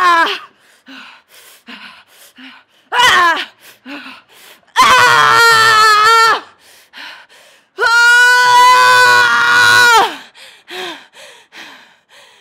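A woman's voice screaming in a comic imitation of Wolverine's battle roars: two short screams falling in pitch, then two long held screams of about a second and a half and two seconds, with short panting breaths between.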